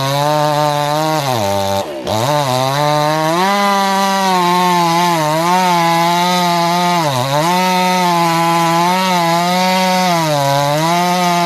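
Stihl MS 362 C two-stroke chainsaw running at high revs and cutting wood, its pitch sagging briefly several times as the chain bites, then picking back up. About two seconds in the revs drop sharply and climb straight back.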